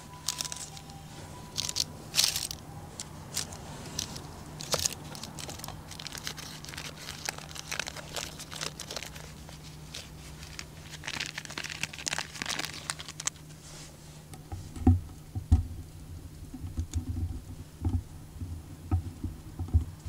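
Baking paper crinkling, rustling and tearing as it is peeled off a freshly baked pancake. Over the last few seconds there is a series of low, dull thumps.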